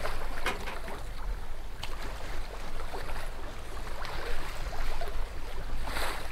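Water sloshing and wind around a sailing yacht, with wind buffeting the microphone as a low rumble. A few light knocks, and a louder rush near the end.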